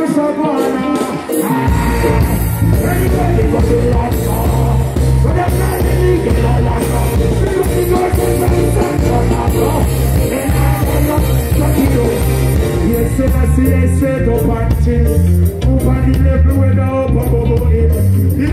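Live reggae band music over a heavy PA, with a male singer chanting and singing into a microphone. The bass and drums drop out briefly at the start and come back in about a second and a half in.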